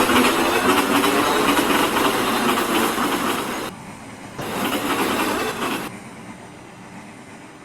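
A train passing close by, the noise of its wheels running on the rails. The noise drops off sharply partway through, comes back for about a second and a half, then falls to a much quieter level about six seconds in.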